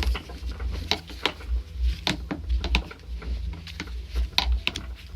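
Toyota Corolla 120 steering rack shaft being worked back and forth through its freshly greased caprolon bushing, with irregular clicks and knocks and low thumps. The movement spreads the grease over the new bushing.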